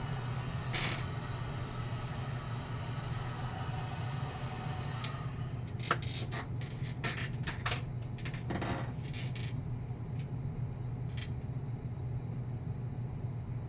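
Heat gun on its low setting blowing steadily, a hum with a airy hiss, while heat-shrink tubing is shrunk over soldered wire connections. Several sharp clicks and scrapes of handling come about halfway through, and the hiss cuts off about nine or ten seconds in, leaving a low hum.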